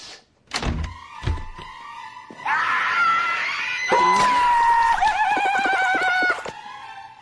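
Cartoonish film sound effects: two heavy thuds about a second in, then a loud, warbling high-pitched sound that wavers for about four seconds over music.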